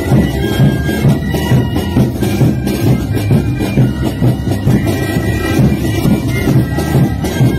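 Loud Andean carnival music from a street band: a group of reedy wind instruments playing a held melody over a steady drum beat.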